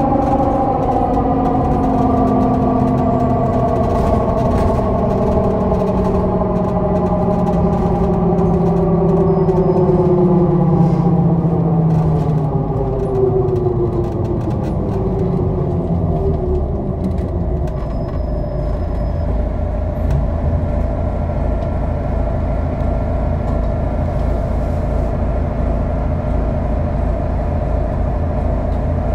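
Mercedes-Benz O 530 GL CapaCity articulated bus with a broken differential: a loud gear whine that falls steadily in pitch over about sixteen seconds as the bus slows. After that a steady, low, pulsing engine sound carries on.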